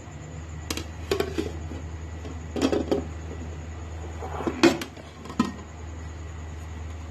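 Kitchen dishes and utensils knocking and clinking in a few separate short clatters over a steady low hum.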